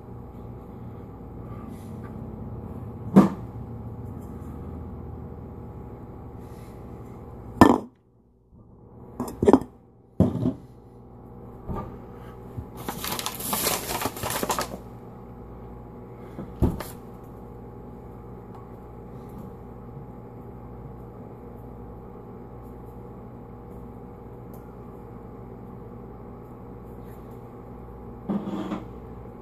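Kitchen prep handling: a paper flour bag rustles for about two seconds midway, and several sharp knocks of objects set down on a countertop come before and after it. A steady low hum runs underneath.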